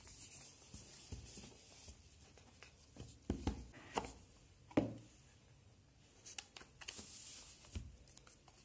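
Faint handling of a cardboard phone box: the lid is slid off and the inner carton is lifted out, with light scraping and a few soft knocks a few seconds in.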